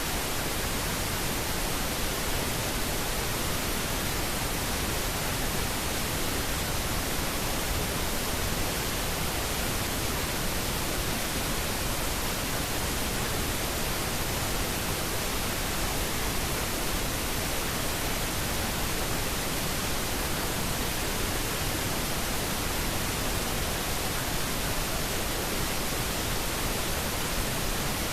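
White noise (static): a steady, even hiss spread across all pitches with no changes, the masking layer of a subliminal affirmation recording.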